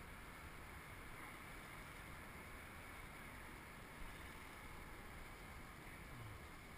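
Near silence: a faint, steady background hiss with no distinct paddle strokes or splashes standing out.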